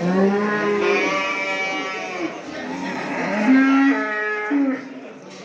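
Cattle mooing: two long moos, the second slightly higher-pitched than the first.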